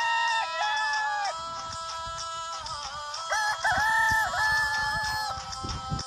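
Aseel gamecock crowing twice. The first crow is already under way and ends about a second in; a second, long crow follows from about three to five seconds in. Background music plays underneath.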